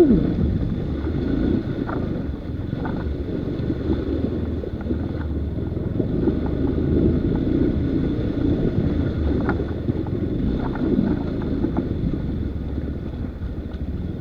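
Off-road motorcycle engine running steadily under a rumble of wind buffeting the microphone, with a few faint knocks.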